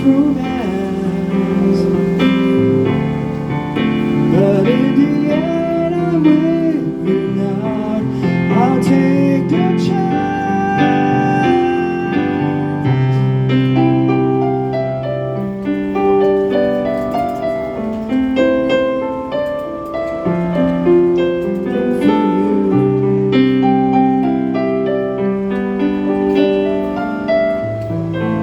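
Live busking music: an electric keyboard playing slow, sustained ballad chords, with a singing voice heard over it in the first several seconds.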